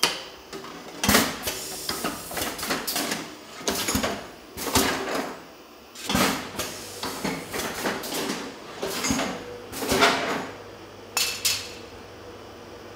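Glass cava bottles clinking and knocking against each other and their rack as they are handled, in a quick irregular run of clattering knocks that stops shortly before the end. A faint steady hum comes in about halfway.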